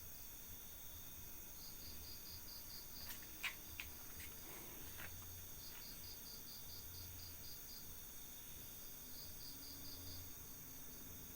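Night insects: a cricket chirps in quick pulsed runs of about a second each, repeating, over a steady high-pitched insect drone. A few sharp clicks come about three to four seconds in.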